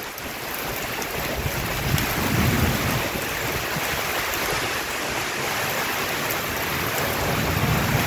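Heavy rain falling steadily while strong wind blows through the trees. Two low rumbles swell up, one about two seconds in and one near the end.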